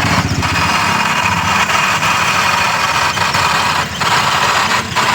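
Maruti Suzuki Alto's three-cylinder petrol engine running at idle, with a steady 'khach khach' noise from the gearbox, which the mechanic traces to the gearbox running almost dry of gear oil.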